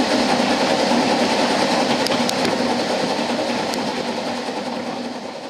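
A narrow-gauge steam train hauled by a Double Fairlie locomotive, heard from just behind the engine while running: a steady, even running noise. It fades gradually over the last couple of seconds.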